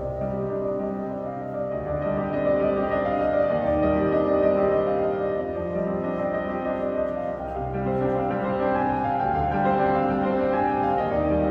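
Piano trio of piano, violin and cello playing live: piano chords under held string notes that change every second or two.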